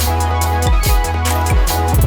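Background music: an electronic track with a deep bass kick about twice a second, hi-hats, and sustained chords.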